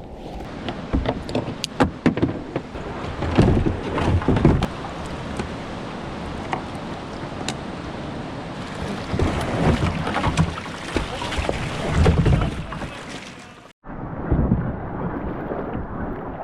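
Rushing whitewater with repeated sharp splashes as a kayak is paddled down a river rapid, with some wind on the microphone. The sound cuts out briefly near the end and comes back duller.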